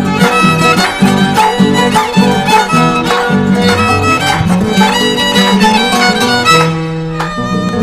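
Andean violin playing the melody of a traditional Andean song over plucked string accompaniment. The piece winds down near the end, closing on a held final chord.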